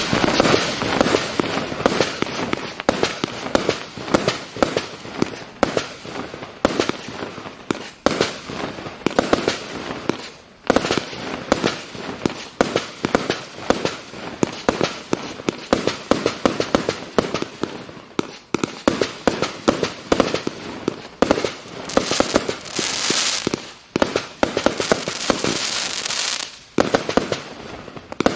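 Triplex TXB813 'Cowboy Roy' fireworks firing a fast, continuous run of bangs and crackles, with a brief lull about eleven seconds in. Stretches of bright hissing crackle come near the end.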